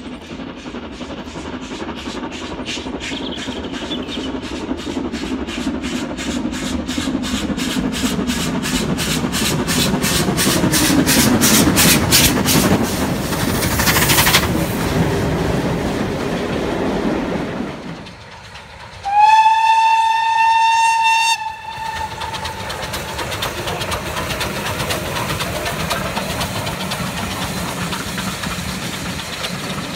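A steam locomotive working hard, its rapid, even exhaust beats growing louder as it approaches and passes beneath about 14 seconds in. After a break, a steam whistle sounds for about two seconds. Then a BR Standard Class 4 tank engine and its carriages run past with a steady rumble of wheels.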